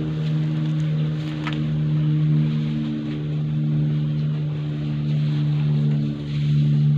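A mass of honey bees buzzing in a loud, steady low hum, the colony stirred up as it is handled and moved into a new hive box.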